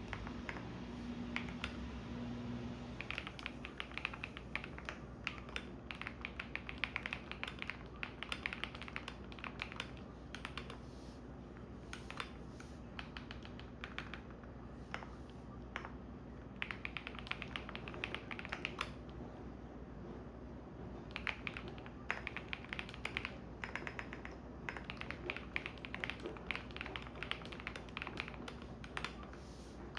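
Typing on a computer keyboard in bursts of quick clicks with short pauses between them, over the steady low hum of a washing machine running.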